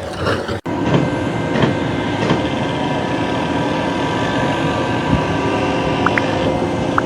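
Steady mechanical running noise with a few steady tones through it, after a brief dropout about half a second in.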